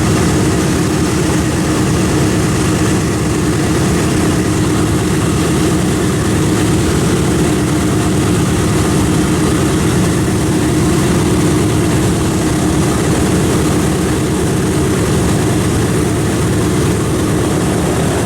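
Piston engines of a WWII-era warbird running steadily close by, a loud, even propeller drone with no change in pitch.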